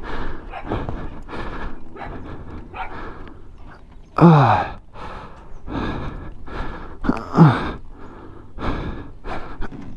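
A man breathing hard and straining, with two loud groans of effort that fall in pitch, about four and seven seconds in.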